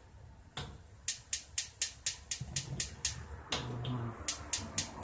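Gas stove burner's electric igniter clicking rapidly, about four clicks a second, in two runs with a short break between, as the burner is being lit. A single knock comes shortly before the clicking starts.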